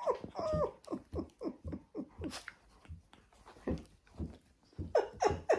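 Small dogs play-wrestling, giving a rapid run of short, falling yips and whines, with a brief pause about three seconds in.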